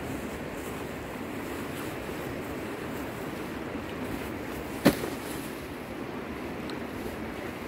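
Fast-flowing river rushing steadily over rocks, with a single sharp knock about five seconds in.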